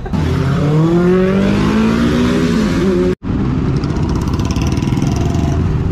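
Motorcycle engine accelerating, its pitch rising steadily. About three seconds in, the sound cuts off abruptly, then a motorcycle engine carries on steadily under a rushing noise.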